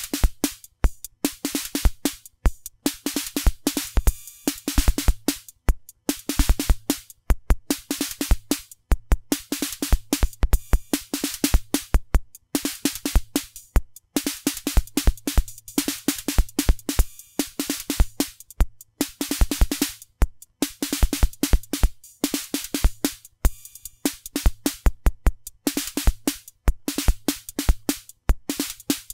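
Analog drum machine playing a repeating beat: low kick-drum hits and a mid thump under dense, hissy cymbal and hi-hat hits. The cymbal voice is a BOSS DR-110-style analog cymbal circuit, which mixes white noise with square-wave metallic noise, filters it and shapes it with envelopes.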